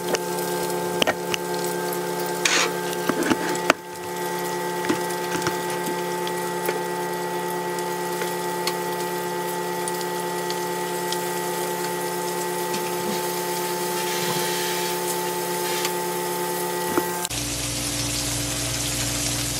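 Flour-coated chicken breast frying in hot grease: a steady sizzle with a steady hum underneath, and a few clicks and knocks in the first few seconds.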